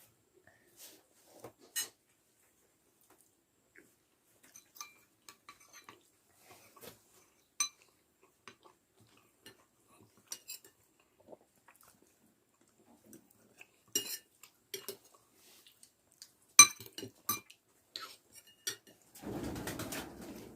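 Cutlery clinking and tapping on a plate as someone eats: scattered light clicks and clinks, the sharpest about two thirds of the way through. Near the end comes about a second of dense, noisy sound.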